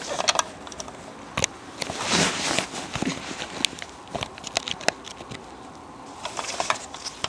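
Handling noise from a plastic Nerf toy pistol and its foam darts: scattered plastic clicks and knocks, with a louder rustle about two seconds in.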